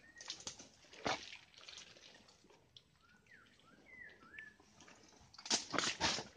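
Footsteps squelching and crackling through wet mangrove mud and roots, loudest about a second in and again near the end. In between, a bird gives several short whistled calls that rise and fall.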